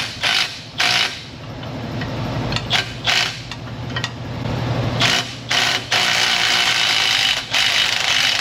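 Tool work on a tight ball-joint pinch-bolt nut in a car's front suspension: a few short mechanical bursts, then about two and a half seconds of a steady mechanical whir as a power tool runs on the nut. The nut is binding on the bolt and gets damaged.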